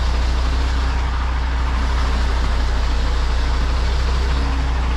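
MAN lorry's diesel engine running steadily at low revs: a constant deep drone.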